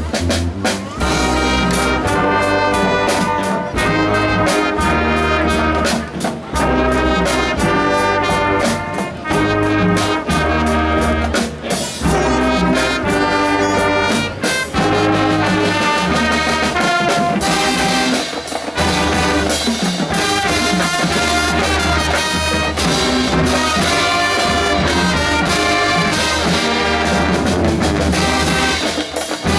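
A school band playing, with trumpets and trombones carrying the melody over a steady pulsing bass line and regular drum strikes.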